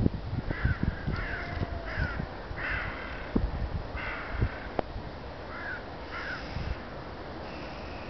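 Black-headed gulls giving short, harsh calls, about eight in a row roughly a second apart and fading near the end, over a low irregular rumble with a few sharp knocks.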